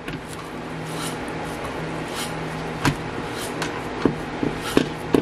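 Scattered light knocks and clicks of hands working at a kitchen counter, about half a dozen spread through the middle and end, over a steady low hum.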